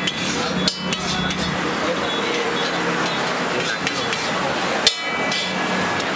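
Metal spatula scraping and tapping on a large flat griddle as egg batter is spread, with sharp clacks twice in the first second and once more about five seconds in.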